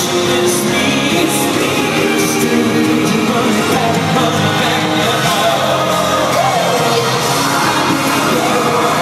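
Live concert music: a lead singer and band amplified over an arena sound system, heard loud and steady from among the audience, with crowd voices yelling along.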